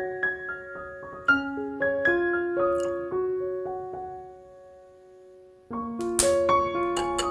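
Background piano music: a gentle melody of held notes that fades almost away about five seconds in, then starts up again near the end with a short noisy swish.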